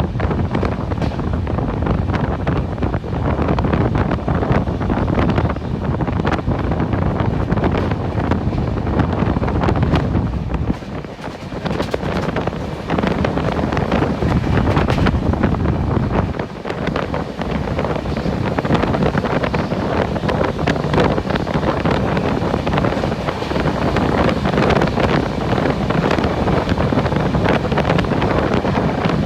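Heavy wind buffeting the microphone over the steady running noise of a moving train, with two brief lulls partway through.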